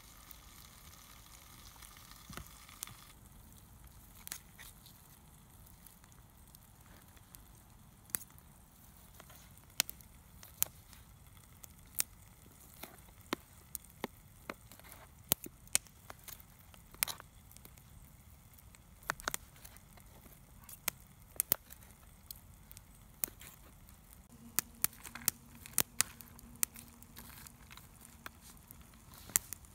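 A wood cooking fire sizzling and hissing under food on a grill for the first few seconds, then scattered sharp clicks and taps of a knife and fork against a plastic plate as grilled steak is cut and eaten. A low hum for a couple of seconds near the end.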